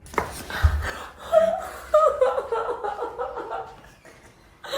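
A sharp click and a low thud right at the start as a chiropractic spinal adjustment is delivered, followed by a woman laughing in a run of short, high-pitched bursts that fade out.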